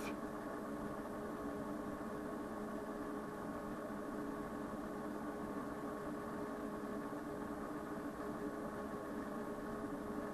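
Steady electrical hum and hiss with several constant tones and no change, the background of running electronic test equipment.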